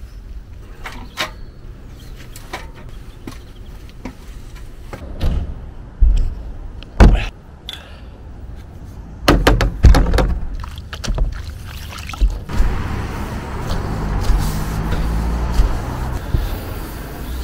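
Long-handled brush scrubbing a motorhome roof, a steady rough scrubbing that starts about two-thirds of the way in. Before it, a few loud thumps and knocks.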